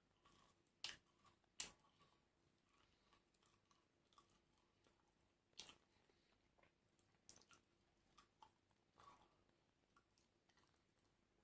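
Faint chewing of food, with a few sharp short crunches or clicks scattered through it, the loudest about a second and a half in.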